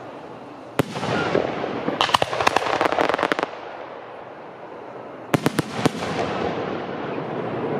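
Fireworks going off: a single sharp bang just under a second in, then a rapid string of crackling bangs, and another quick cluster of several bangs about two-thirds of the way through.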